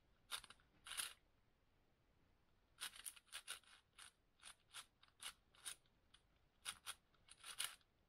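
Speed cube being turned by hand: short plastic clicking snaps of layer turns in irregular groups, with brief pauses between them.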